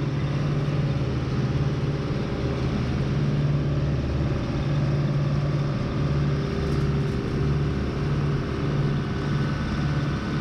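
Skid loader engine running at a steady speed.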